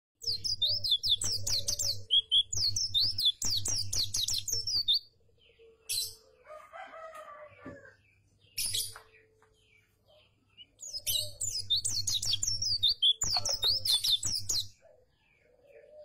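White-eye (Zosterops, 'pleci') singing a fast, high twittering song in two long bursts of about four to five seconds each, with a few single sharp calls in the pause between.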